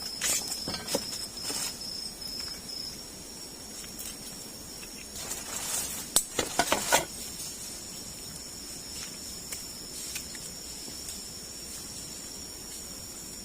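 A steady, high-pitched drone of forest insects, with brief rustling and clinking from something being handled in the first couple of seconds and again around the middle.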